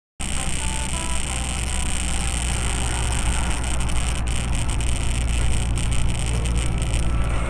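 Steady engine and road noise of a moving car, heard from inside through a dash camera, cutting in abruptly at the start.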